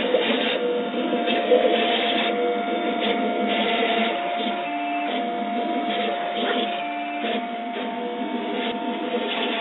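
Stepper motors of a laser engraving and cutting machine driving its head back and forth: a whirring made of short tones that jump from pitch to pitch, over a steady whine.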